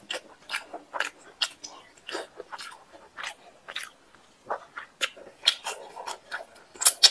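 Close-up, wet chewing and lip-smacking of a man eating rice and chicken curry by hand, a rapid irregular run of smacks and clicks. Near the end come louder crunches as he bites into a slice of raw onion.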